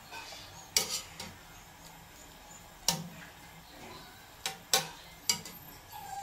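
Metal strainer and tongs clinking against a stainless-steel basin while chicken feet are scooped out of their soaking liquid: a handful of sharp clinks at irregular intervals.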